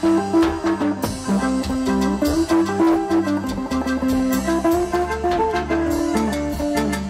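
Live band playing an instrumental passage: a plucked guitar melody over bass and a steady drum beat.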